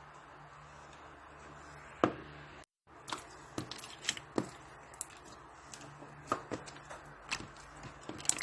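Slime being handled, making crisp clicking and popping sounds: one sharp click about two seconds in, then after a brief dropout a run of clicks and pops every third to half second.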